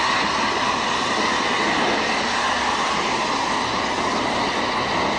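Manitou and Pike's Peak Railway Baldwin compound steam cog locomotive working with its coach: a steady hiss of steam and running noise that does not let up.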